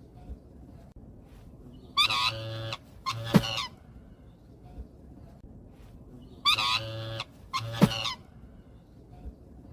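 Black swan calling: two pairs of short, high, trumpeting honks, the second pair about four seconds after the first.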